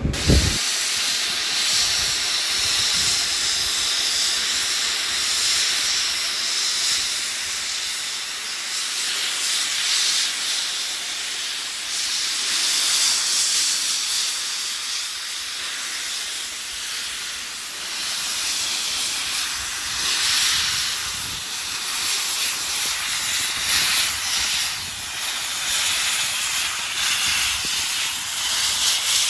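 Escaping steam hissing from NSW AD60 class Beyer-Garratt locomotive 6029, a steady rush that swells and eases.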